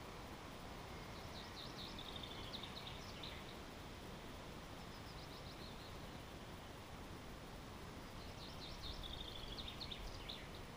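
A small songbird singing: two full trilled phrases about seven seconds apart, each a run of quick notes ending in a brief flourish, with a shorter fragment between them, over a steady background hiss.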